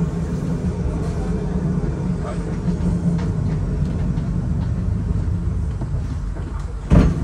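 W8-class tram running along the street, heard from inside the passenger saloon: a steady low rumble of wheels on rail and traction motors, with one sharp loud thump near the end.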